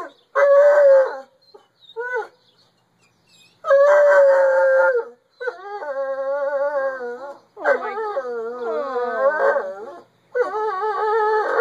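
Bloodhound howling and baying in a string of long, wavering howls with short breaks between them, greeting its owner on arrival home.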